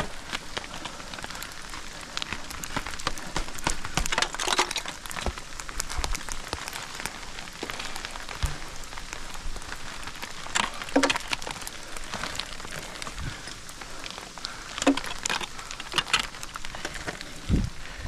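Ice axe and crampon points scraping, tapping and biting into waterfall ice while traversing, with small ice chips crackling. A run of many small clicks, with several louder strikes spread through and a low thump near the end.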